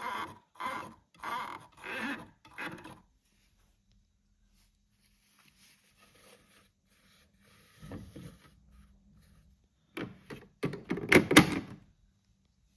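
A plastic toy washing machine being handled. Five short rattles come about two-thirds of a second apart, then a faint steady hum, and near the end a loud cluster of clicks and knocks.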